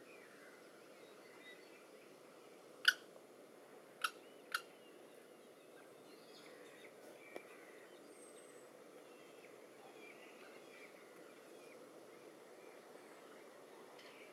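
A faint steady hiss with a few sharp clicks or knocks: one about three seconds in, then two close together a second later, and a weaker one after that.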